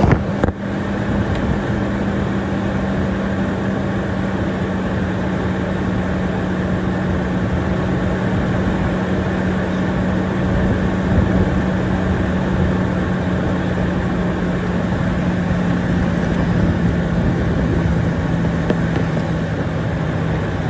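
Lexus GX 460's 4.6-litre V8 idling steadily just after starting on a boost-charged battery, its pitch sinking slowly as the fast idle settles. A single knock about half a second in.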